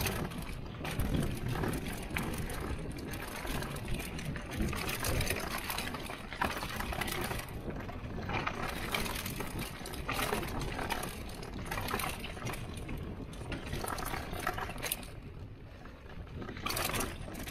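Mountain bike rolling down a loose, sandy dirt trail: tyres crunching over dirt and ruts, with the bike's chain and parts rattling in many quick clicks and knocks.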